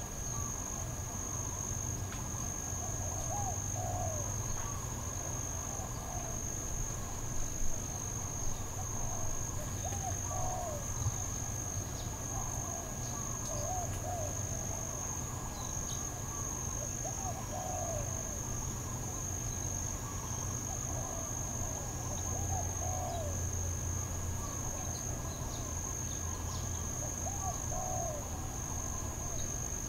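Steady high-pitched chorus of night insects such as crickets over a low hum, with faint short calls repeating every couple of seconds; no clear dog barking.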